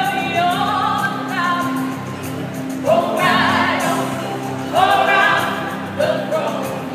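Mixed group of voices singing a cappella in parts, melody over low held notes, with new phrases beginning about three and five seconds in.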